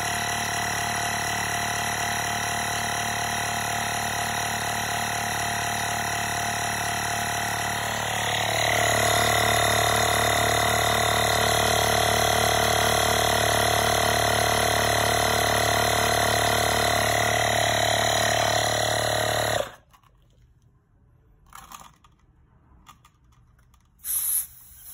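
Nissan Leaf's 12-volt emergency tire inflator compressor running steadily while pumping up a tire toward 36 psi; it gets louder about eight seconds in and is switched off abruptly about twenty seconds in. Near the end a short, sharp burst of noise as the hose is unscrewed from the tire valve stem.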